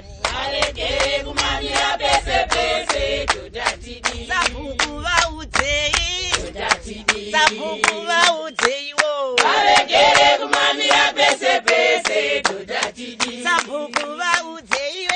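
A group of women and men singing together without instruments, clapping their hands in a steady rhythm.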